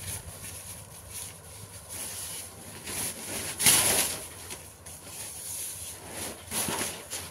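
Sheets of paper rustling and crinkling as they are folded by hand, in several short bursts; the loudest is about halfway through.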